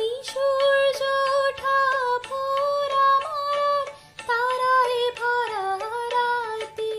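A young woman singing a Bengali song, holding long notes with slight wavers and short breaks between phrases.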